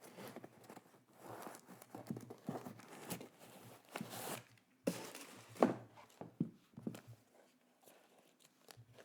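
Packaging being handled and unwrapped: irregular rustling and tearing with crinkles and a few light knocks. It dies down about seven seconds in.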